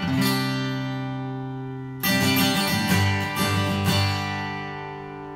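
Acoustic guitar music: strummed chords that ring out and slowly fade, with a fresh chord strummed about two seconds in and a few lighter strums after it.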